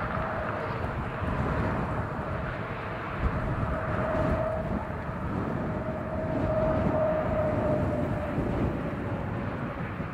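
Diesel freight train running: a steady rumble with a held mid-pitched whine that swells in the middle and fades near the end.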